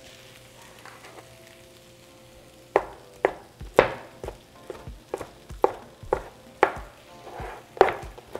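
Meat cleaver chopping grilled chicken breast on a wooden cutting board: sharp knocks of the blade hitting the board, about two a second, starting a few seconds in.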